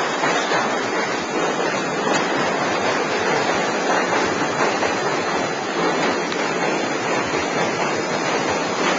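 Steady rushing wind noise on the microphone from riding a bicycle, with no clear tones or distinct knocks.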